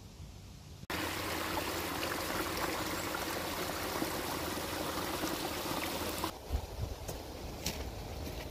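A steady rushing noise, even and without any tone, that starts abruptly about a second in and drops away about six seconds in, leaving fainter noise with a few light clicks.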